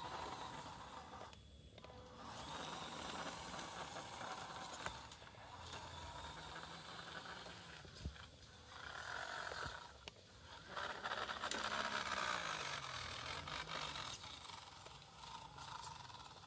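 WPL D12 RC mini pickup's small electric motor and gearbox whining, rising and falling in pitch as the truck speeds up and slows, with its tyres scraping over rough concrete. There is a single sharp click about eight seconds in.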